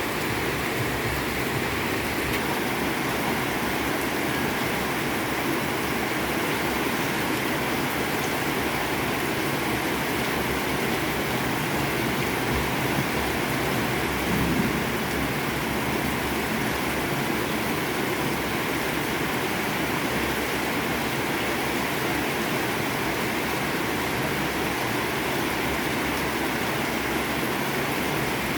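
Heavy rain falling steadily, an even hiss of drops without breaks.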